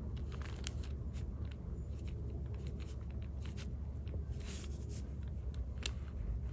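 Soft strokes and dabs of a Chinese brush on thin, sized cicada xuan paper: faint scattered ticks and brief papery swishes, with a longer swish about four and a half seconds in, over a steady low hum.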